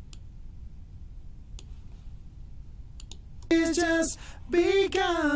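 A few faint mouse clicks, then from about three and a half seconds in, playback of layered harmony backing vocals singing held notes, with their low end rolled off by a high-pass filter.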